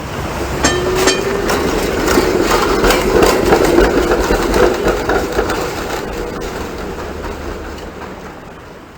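Hong Kong tram running along its rails: a steady motor hum with wheel clatter that grows louder, peaks partway through and fades away. A few sharp metallic clicks come about a second in.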